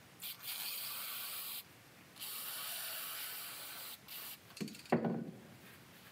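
Aerosol brake cleaner spraying in bursts onto a clutch master cylinder piston to wash off old gunk: a short puff, two long hisses of about one and two seconds, then another short puff. Two brief handling knocks follow near the end.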